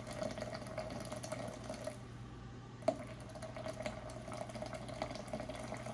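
Hot water pouring in a thin steady stream from a gooseneck kettle into a glass French press of coffee grounds, filling it. A single light knock about three seconds in.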